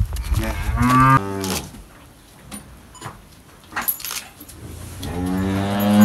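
Cattle mooing twice: a call of about a second that steps up in pitch near its end, then a longer call starting about five seconds in.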